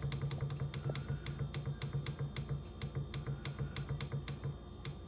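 Rapid clicking from a countertop air fryer oven's control panel as the cooking-time button is pressed or held, the timer stepping up about four to five times a second and slowing near the end, over a low hum.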